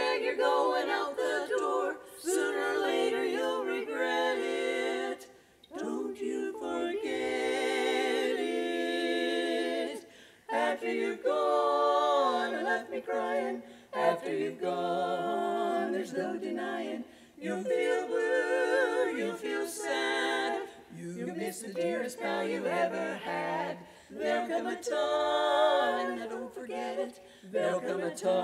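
Women's barbershop quartet singing a cappella in four-part close harmony, in phrases separated by short breaks.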